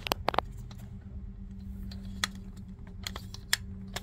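Sharp metallic clicks and clacks, irregularly spaced, from the parts of an FN 240 Bravo machine gun being handled as a folding part is squeezed and worked, over a steady low hum.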